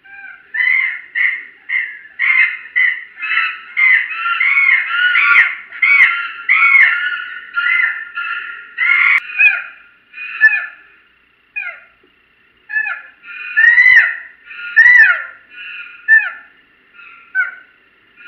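Chimpanzee calling: a long run of loud, high calls, about two a second, each rising and falling in pitch, thinning out and coming more sparsely in the second half.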